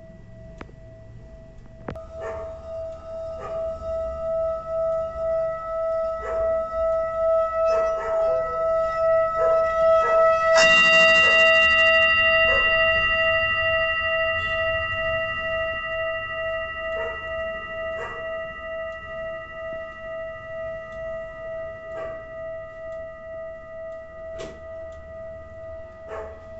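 Manipuri singing bowl ringing with a steady tone and its higher overtones. Its sound swells to a peak about ten seconds in, then slowly fades with a regular pulsing wobble.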